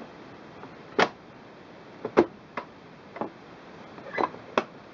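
Plastic tabs of a sewing machine's front cover snapping into place on the back cover as it is pressed home. A series of sharp clicks, loudest a little over two seconds in.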